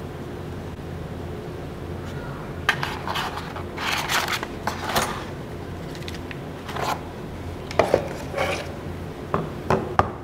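Handling sounds of a smartphone and its packaging on a wooden desk: scattered taps, clicks and rustles in two bursts, with a few sharp knocks in the second, over a steady low hum.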